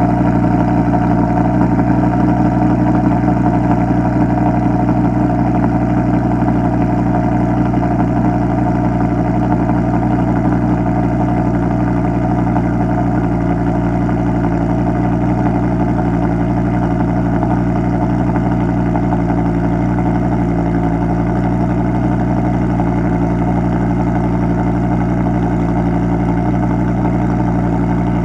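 Audi R8 LMX's 5.2-litre naturally aspirated V10 idling steadily after a cold start, heard from the exhaust.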